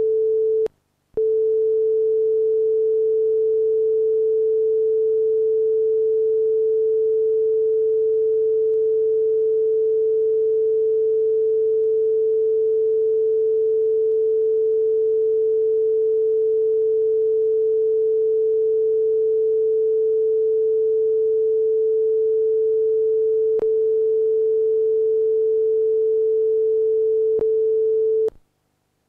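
Steady pure test tone, a single unwavering note a little under 500 Hz, from the broadcast sound test played with Test Card F after closedown. It breaks off for about half a second about a second in, and stops abruptly near the end.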